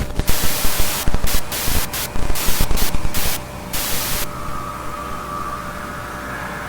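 Loud bursts of TV static cutting in and out in a stuttering, irregular pattern, the broadcast signal breaking up; the static stops about four seconds in. A lower hiss follows, with a faint wavering tone over a steady hum.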